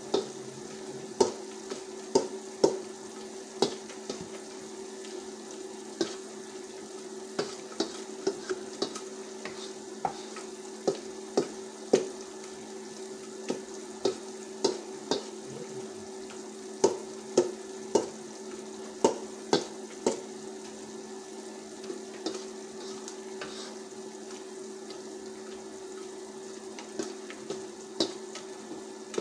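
A steel tumbler pounding and pressing boiled saag greens in a stainless-steel bowl, mashing them: irregular sharp knocks of metal on metal, often one or two a second with short pauses between runs, over a steady low hum.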